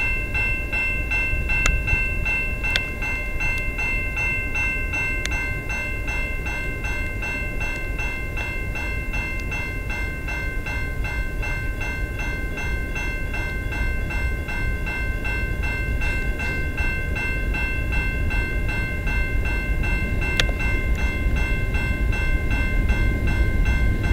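Railway level-crossing warning bell ringing in rapid, even strokes while the crossing is activated for an approaching train. A low rumble underneath grows louder toward the end.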